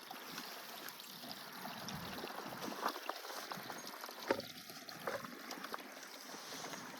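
Water pouring steadily into a container as an animal water is being filled, with a couple of light knocks about three and four seconds in.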